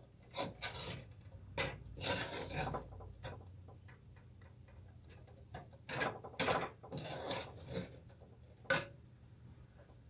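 Irregular light knocks, clicks and rubbing from kitchen items being handled at a counter, with a few short clusters of louder clattering.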